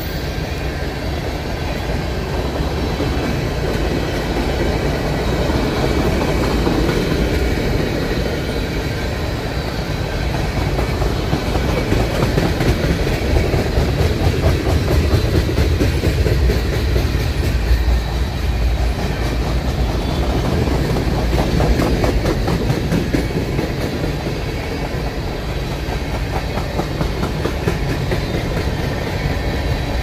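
Freight train cars rolling past, first tank cars and then open-top cars, making a steady low rumble. Wheels click over the rail joints, most densely through the middle.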